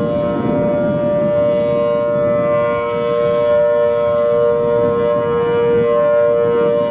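Federal Signal Thunderbolt 1000T outdoor warning siren with a 4/5-port rotor, sounding a steady Alert: a loud, sustained two-note chord that holds its pitch without rising or falling.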